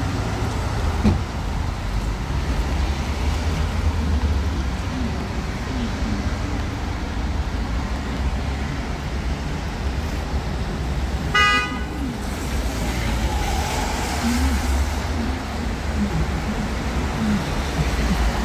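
Street traffic noise, a steady low rumble of cars passing. About two-thirds of the way through, a vehicle horn gives one short toot.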